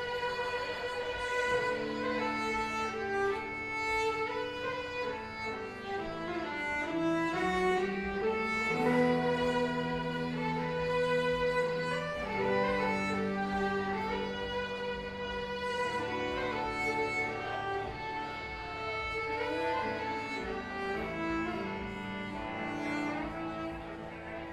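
Country fiddle playing a melody of long held notes with slides between them, over acoustic guitar and sustained bass notes, as a live band plays.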